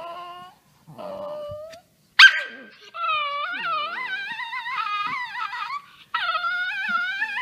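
A small dog howling in a wavering, sing-song pitch. Two short whining howls come first, then a sharp yelp about two seconds in (the loudest moment), then long, wavering howls that pause briefly near the end and start again.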